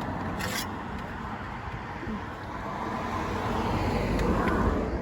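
Roadside traffic: a steady low rumble of road noise that swells slowly as a vehicle approaches near the end, with a brief hiss about half a second in.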